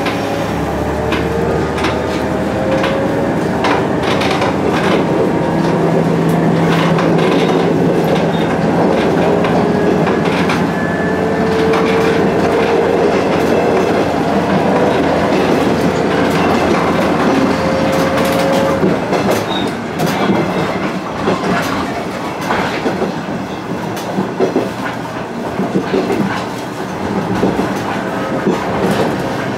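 KiHa 110 series diesel railcar heard from inside the driving cab as it gathers speed: the diesel engine runs under power with a faint rising whine over the clatter of the wheels on rail joints and points. About two-thirds of the way through, the engine note drops away and the wheel clatter and knocks carry on.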